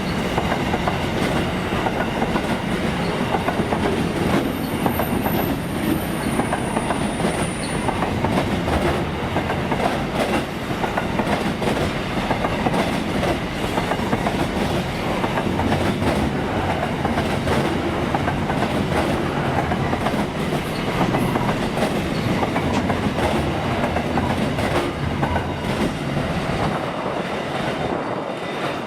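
Freight train wagons rolling past, wheels clicking steadily over the rail joints, with a faint high wheel squeal from about three to eight seconds in.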